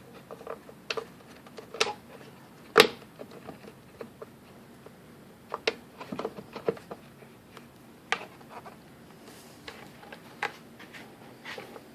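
Irregular light clicks and knocks of hard plastic and a metal screw being handled while a tail light assembly is lined up and its screw is started, the sharpest knock about three seconds in.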